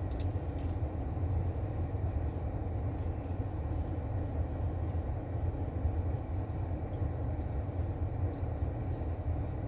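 Steady low rumble of a car's engine idling with the air conditioner running, heard from inside the cabin.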